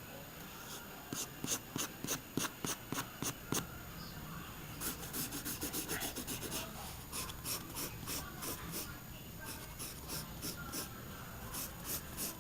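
Drawing strokes scratching across sketch paper: runs of quick, short strokes, faster in the middle, then scattered.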